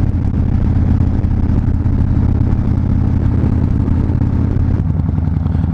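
Harley-Davidson Fat Bob's V-twin engine running steadily under way, a loud low rumble with no clear revving.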